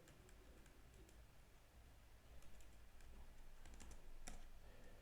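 Faint computer keyboard typing: scattered keystrokes, coming closer together near the end.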